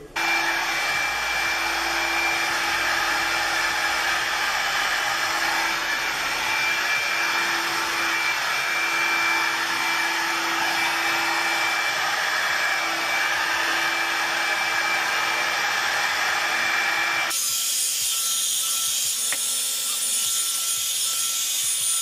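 Revlon One-Step hair dryer and volumizer brush running on its low heat setting: a steady blowing rush with a faint motor whine as it is worked through the hair. About three-quarters of the way through the sound abruptly turns thinner and hissier.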